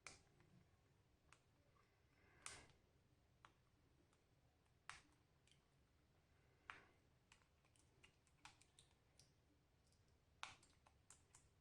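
Faint, scattered clicks and taps of small phone parts and tools being handled during an iPhone logic board swap: about five sharper clicks a couple of seconds apart, with lighter ticks between them.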